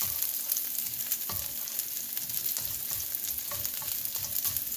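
Chopped garlic sizzling in hot oil in a wok, stirred with a spatula that knocks and scrapes against the pan now and then.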